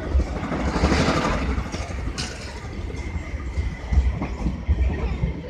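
Passenger train running slowly, heard from an open coach window: a steady rumble of wheels on rails with irregular knocks.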